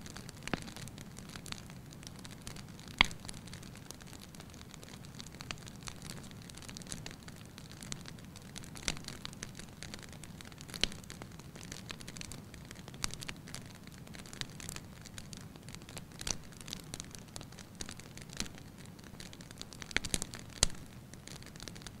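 Wood fire of stacked logs burning: crackling with scattered sharp pops over a soft steady rush of flame. The loudest pop comes about three seconds in, and several pops bunch together near the end.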